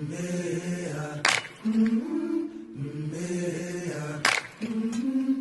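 Wordless a cappella vocal chant, long held notes stepping slowly in pitch, with a sharp percussive hit about every three seconds: the intro of a song.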